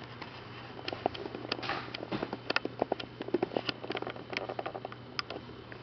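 Irregular clicks and taps of a handheld video camera being handled close to its built-in microphone as its controls are worked to switch to manual focus. A steady low hum runs underneath.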